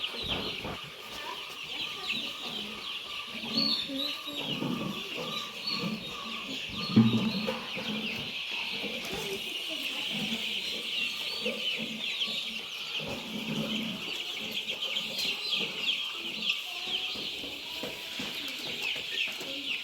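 A large flock of three-week-old chicks peeping continuously, many high chirps overlapping. A few low thumps come through, the loudest about seven seconds in.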